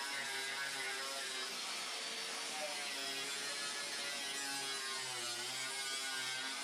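A small electric power tool running steadily, its pitch dipping briefly about five seconds in as if put under load.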